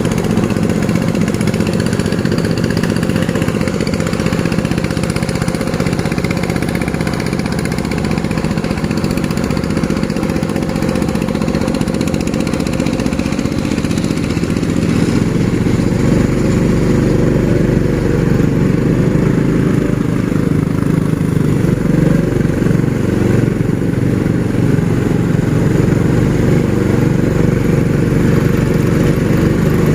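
An engine running steadily, growing a little louder and fuller about halfway through.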